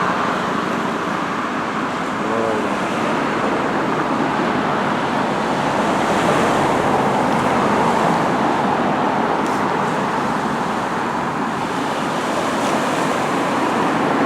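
Steady noise of road traffic mixed with small waves washing on the shore, swelling and easing gently every few seconds.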